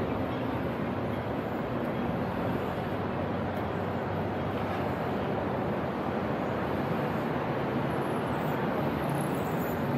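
Steady din of street traffic, with a low hum of engines and no single event standing out.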